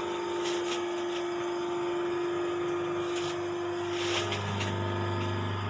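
Hydraulic hose crimping machine's electric motor and pump running with a steady hum, with a few light clicks. About four seconds in, the higher tone of the hum stops and a lower hum carries on.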